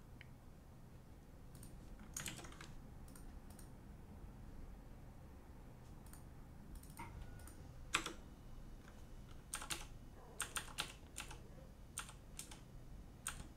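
Computer keyboard keys clacking in scattered strokes, a few at a time at first and coming faster in the last few seconds, with one louder key hit about eight seconds in, over a low steady hum.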